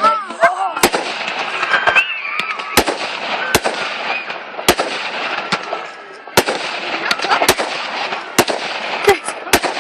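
Fireworks display: sharp bangs about once a second over continuous crackling from bursting shells.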